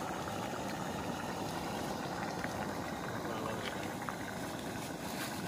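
A pot of stew boiling on a camp stove, a steady bubbling hiss from the pot and burner.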